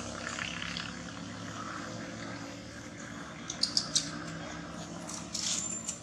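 A steady, engine-like low drone in the background, with three short, sharp high-pitched chirps a little past halfway and a thin high squeal near the end.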